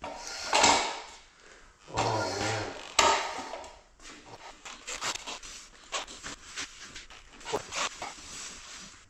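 Dirt bike coming down off a metal lift stand, with heavy thumps and a sharp clank in the first three seconds. Then comes a run of lighter knocks and rattles as the stand is handled.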